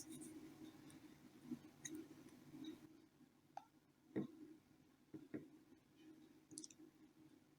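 Near silence: a faint low hum with a few soft, scattered clicks, the loudest about four seconds in.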